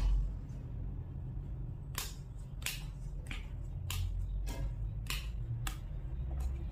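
Tarot cards being handled: a soft thump at the start as a card is set down on the cloth-covered table, then sharp card clicks from about two seconds in, roughly one every two-thirds of a second, over a low steady hum.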